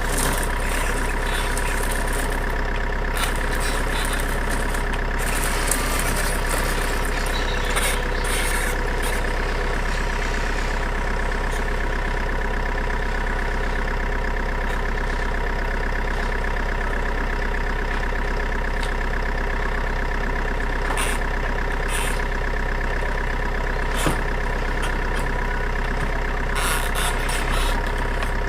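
Steady truck-engine idling sound, unchanging in pitch and level, with scattered short clicks and knocks over it.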